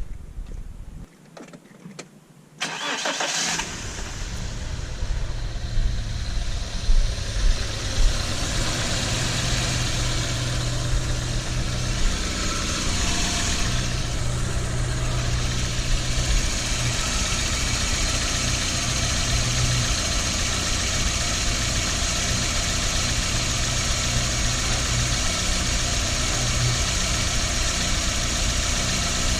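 A Toyota Corolla engine cranks and starts about two and a half seconds in, then idles steadily. It is running after a radiator replacement, with the radiator cap off to purge air from the cooling system.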